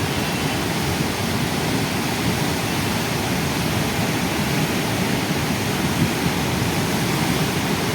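The Beas River in flash flood, running high and fast: a steady, loud rush of water.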